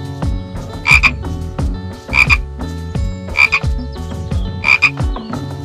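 Frog croaking: four short double-pulsed calls, evenly spaced a little over a second apart.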